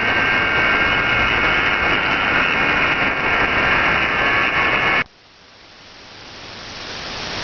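Shortwave radio static: a loud, steady hiss with a few faint steady whistling tones, received on an SDR with no programme audio on the 11800 kHz signal. It cuts off abruptly about five seconds in, then a fainter hiss swells back gradually.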